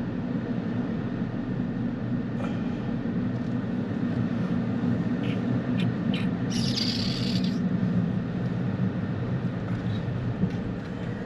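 Steady road and engine rumble inside a car driving slowly. There are a few light clicks, and a brief hiss lasting about a second comes about halfway through.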